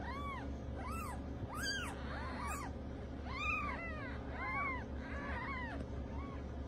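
Newborn kittens mewing: a dozen or so short, high cries that rise and fall in pitch, several voices overlapping, over a steady low hum.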